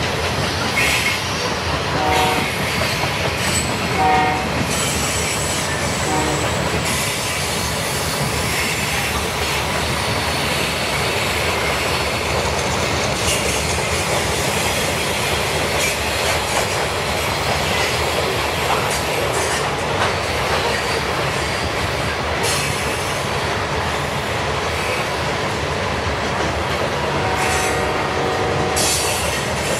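Loaded covered hopper cars of a long freight train rolling past: a steady rumble and rail noise with wheels clicking over the rail joints. A few short squealing tones sound about two to five seconds in and again near the end.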